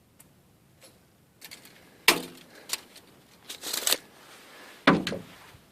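Light metallic clicks and rattles of tools being handled: a sharp click about two seconds in, a short rattle a little later, and a louder knock near the end.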